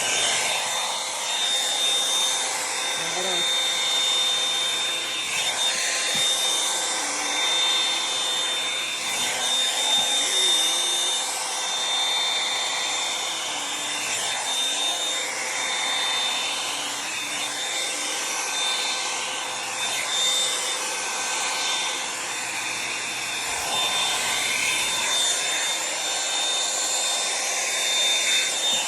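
Revlon One-Step hot-air brush dryer running continuously: a steady rush of blown air with a high, steady whine, rising and falling a little in level.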